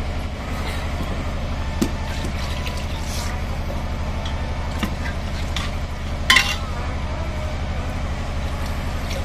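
A generator running with a steady, evenly pulsing low hum, while water is poured from a mug into a steel pot of simmering potato-tomato curry. A sharp clink about six seconds in.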